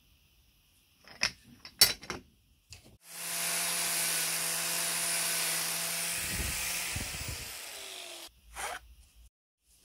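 Angle grinder running for about five seconds, grinding down the head of the pin that holds the wooden handle on an antique meat grinder's cast-iron crank; its pitch falls as it is switched off and spins down. A few metal knocks come before it as the crank is handled in the vise.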